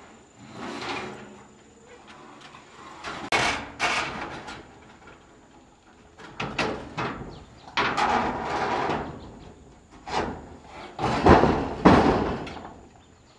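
Irregular knocks and scrapes of timber being worked by hand in log building work: several sharp wooden strikes, the loudest two close together near the end, among longer rasping stretches.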